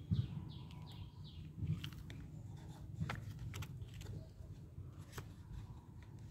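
A plastic toy excavator bucket scraping and clicking in dry wood chips, with a few sharp ticks spread through, over a low rumble of handling noise. A bird chirps a few short falling notes near the start.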